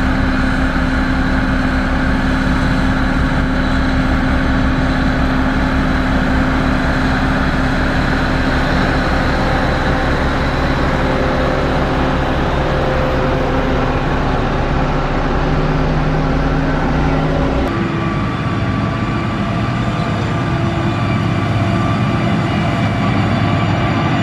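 Heavy construction machine's diesel engine running steadily under work. About 18 seconds in, the sound changes abruptly to a different steady engine note.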